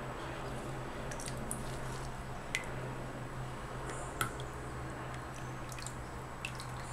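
Soft squishing of liquid cold process soap batter being worked as colorant goes in, with a few light clicks of a utensil against the container, over a steady low hum.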